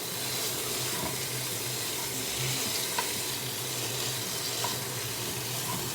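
Chopped purple cabbage sizzling in a piping-hot pot, a steady hiss with a few faint clicks.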